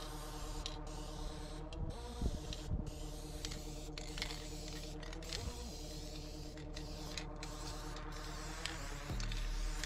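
Background music of held chords that change every few seconds, over the hiss of an aerosol spray-paint can that stops briefly between strokes.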